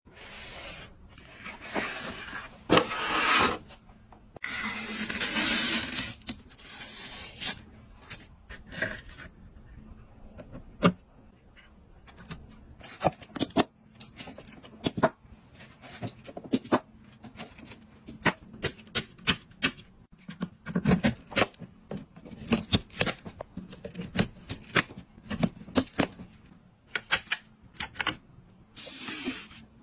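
Hardware being handled: a run of sharp plastic and metal clicks and taps, with a few longer stretches of scraping and rustling, as computer parts are unpacked and fitted.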